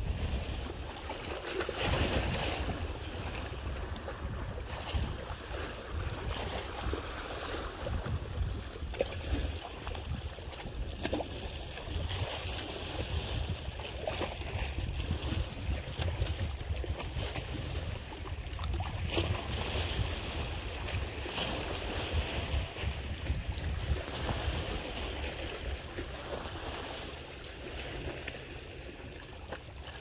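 Wind gusting across the microphone: a steady rushing noise with a low, uneven buffeting rumble that swells and eases.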